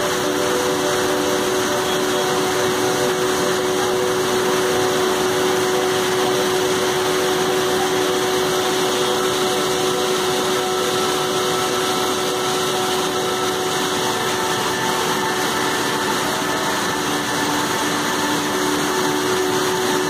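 Heavy floodwater from an overflowing lake pouring over a dam spillway weir and churning below in a loud, steady, unbroken rush. A faint steady hum sits underneath.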